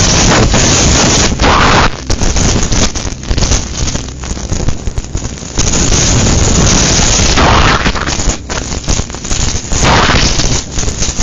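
Hurricane wind buffeting the microphone: a loud rushing noise that swells and eases in gusts, with easier spells about two seconds in and again near eight seconds.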